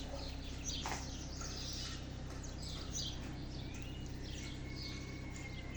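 Several small birds chirping, short scattered calls with one longer thin whistle near the end, over a steady low hum.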